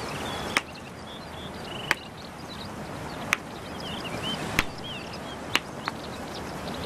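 Macaque hammering a shellfish on a rock with a hand-held stone: about six sharp knocks at uneven gaps of roughly a second.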